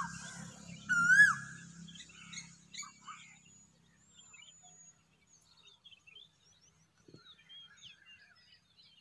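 A cuckoo calling loudly twice in the first second and a half, each call a held note that ends in a quick upward-then-downward flick. After that, faint short chirps of other small birds.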